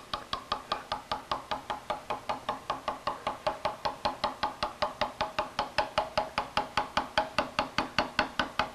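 Steel lettercarving chisel tapped steadily with a hammer, about five light taps a second, cutting a V-groove into hard slate. This is the delicate, repetitive way a letter stroke is deepened, a little stone at a time, starting from the center of the stroke.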